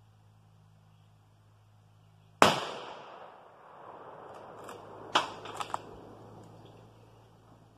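A single high-powered hunting rifle shot: one sharp, loud crack with a long echoing tail that dies away over about a second. About three seconds later comes a quick run of three or four sharp clicks as the rifle's action is worked.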